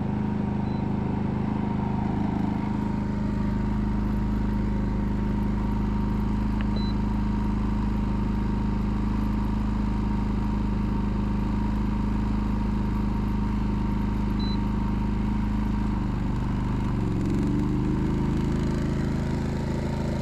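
Portable generator engine running steadily, powering an electric canner. Its note shifts briefly near the end.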